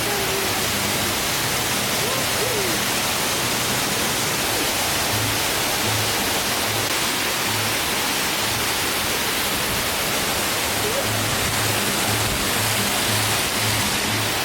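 Banyumala twin waterfalls: a steady, even rush of falling water. Background music runs under it, its bass notes pulsing in a regular beat from about halfway in.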